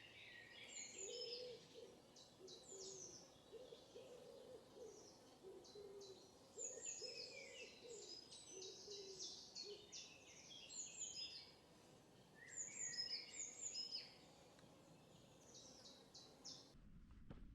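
Faint birdsong: several small birds sing quick, high chirps and trills throughout. A lower call of short repeated hooting notes runs through the first ten seconds.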